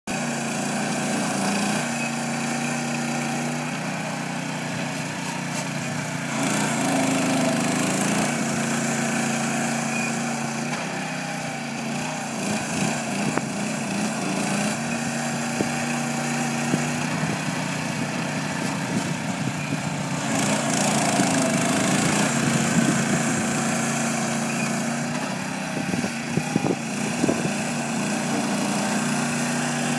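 Small engine of a ride-on greens roller running steadily as it rolls a golf green, its pitch shifting a little now and then, with a few short knocks near the end.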